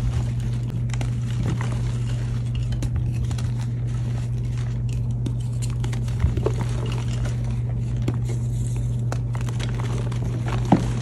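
Hands crushing and crumbling reformed gym chalk blocks: a continuous run of dry crunches and crackles, with two louder crunches about six seconds in and near the end, over a steady low hum.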